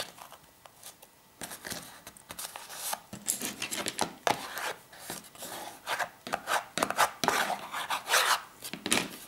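Paper being rubbed and smoothed down onto glued cardboard. The strokes start about a second and a half in and come a few a second.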